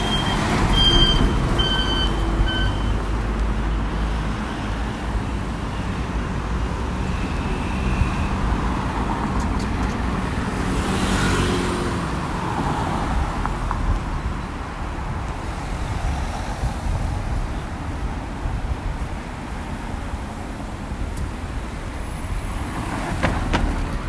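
City intersection traffic: a Hino diesel truck's engine rumbling as it pulls close past, with a few short high beeps in the first couple of seconds. About ten seconds in another vehicle swells past and fades, leaving a steady traffic hum.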